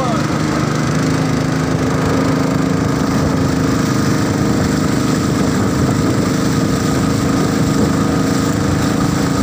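Small boat engine running steadily, a continuous mechanical drone with a held pitch that shifts slightly about two seconds in.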